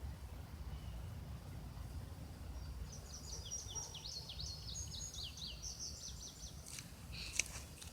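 A songbird sings one fast run of short, high, down-slurred notes lasting about three seconds, over a steady low rumble. Near the end come a few sharp clicks, one of them louder.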